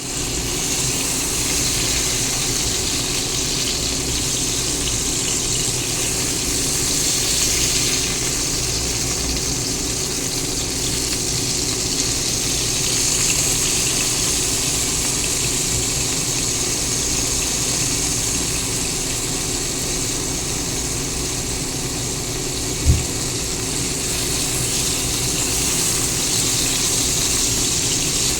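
Pork longanisa sausages frying in a pan: a steady sizzling hiss over a steady low hum, with one dull thump about 23 seconds in.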